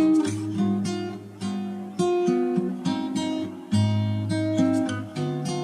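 Background music on acoustic guitar: chords and plucked notes that ring and fade, with a new chord about every second.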